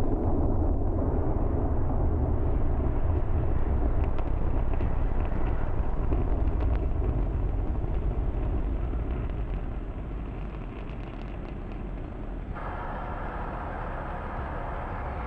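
Falcon Heavy's 27 Merlin 1D engines at full thrust on ascent, heard from the ground: a deep, noisy rumble with some crackle. It fades gradually over the second half and turns abruptly brighter in tone about twelve seconds in.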